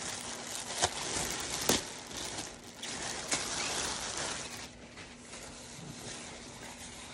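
Clear plastic packaging bag crinkling and rustling as a jacket is pulled out of it, with a few sharp crackles in the first few seconds; it quietens after about four and a half seconds.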